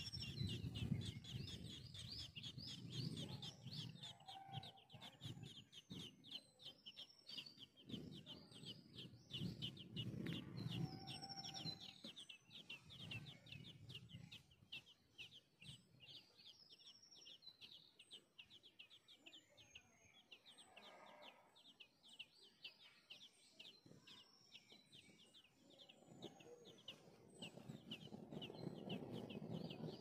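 Songbird nestlings begging: a quick, steady run of thin high cheeps, several a second, that keeps up throughout, with a few higher chirps over it. A low rustling noise comes and goes beneath the cheeps.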